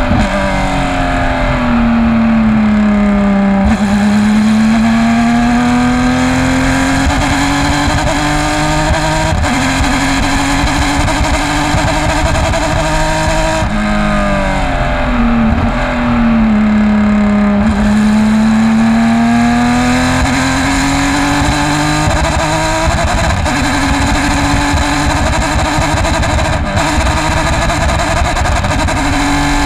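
Porsche race car engine under racing load, its pitch falling as the car slows and rising again as it accelerates, with sudden steps at gear changes. The engine is suffering a bad misfire.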